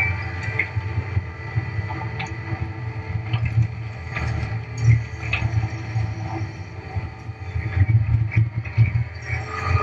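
Engine of a brush-clearing machine running steady under load, a low rumble heard from inside the operator's cab. Brief rattles and clicks are scattered through it.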